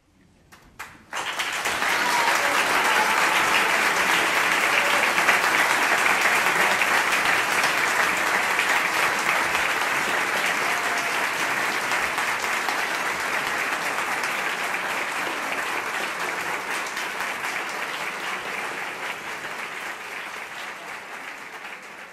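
Audience applause: a few scattered claps, then full applause starting about a second in that slowly dies down.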